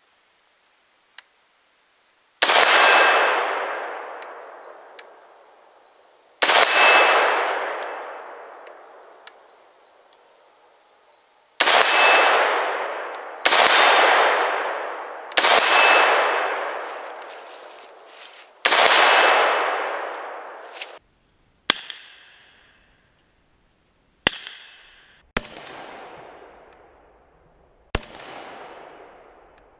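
Single shots from an Arsenal SLR-104FR semi-automatic AK-pattern rifle in 5.45x39mm, fired slowly a few seconds apart. Each sharp crack has a long ringing tail that fades over two to three seconds. Six loud shots come in the first twenty seconds, then several quieter shots with shorter tails.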